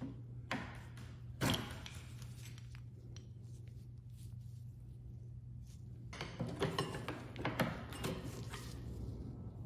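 Light clinks, knocks and scrapes of a small rusty metal hardware piece being handled in gloved hands, with a sharp knock about a second and a half in and a busier patch of handling near the end, over a steady low hum.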